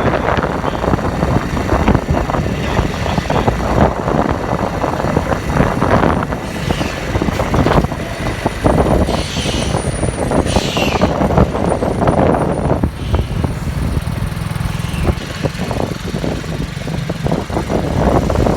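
A car on the move: steady engine and road noise, uneven in loudness, with many irregular knocks.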